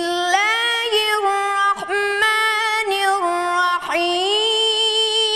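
A child's high voice chanting Quranic recitation in the melodic mujawwad style: long held, ornamented vowels that step up and down in pitch, with brief breaths about two and four seconds in.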